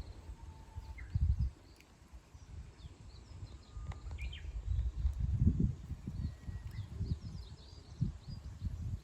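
Small birds chirping and whistling in short, scattered calls, faint against a louder low, uneven rumble that swells twice.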